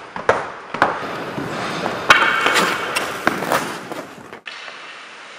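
Ice hockey skates and stick: a run of sharp clacks and knocks, then skate blades scraping across the ice with more clacks of the stick. About four and a half seconds in it cuts off abruptly to a steady hiss.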